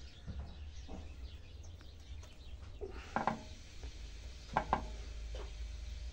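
Hands working in the foliage of a juniper bonsai make a few short taps and clicks over a low steady rumble. The loudest are a quick pair of clicks a little past the middle.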